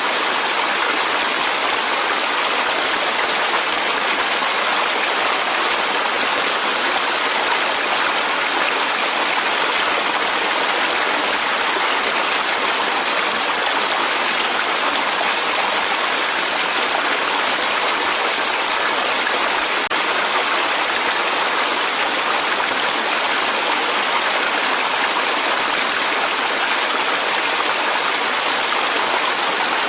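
Clear mountain stream rushing steadily over rocks in a valley, an even hiss of flowing water with no breaks.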